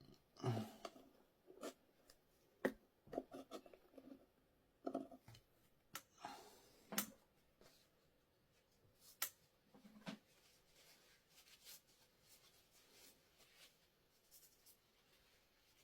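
Sparse sharp clicks and short scraping, rustling handling noises from hand-working the e-scooter's rear tyre with tools. It is mostly quiet between them, and quieter still after about ten seconds.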